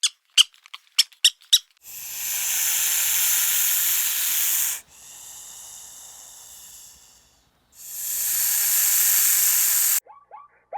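A few short, high squeaks, then an animal hissing in three long breaths of about two to three seconds each, the middle one quieter.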